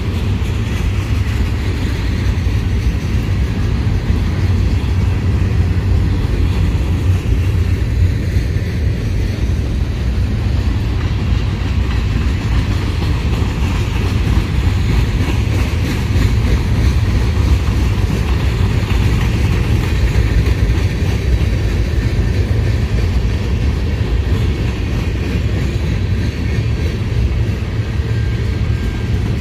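Freight train of covered hopper and tank cars rolling past: a steady rumble of steel wheels on the rails.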